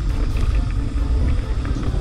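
Wind buffeting the camera microphone and mountain bike tyres rumbling over a dry dirt trail while riding, a heavy uneven low rumble with faint steady tones above it.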